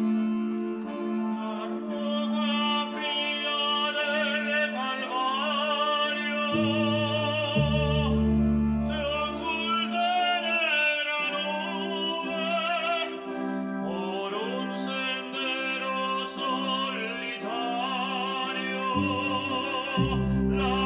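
Operatic singing with strong vibrato over held low accompaniment chords that change every few seconds.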